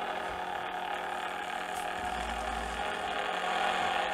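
XenoPixel V3 lightsaber's built-in speaker playing the ignited saber's idle hum, a steady electric drone made of many held tones.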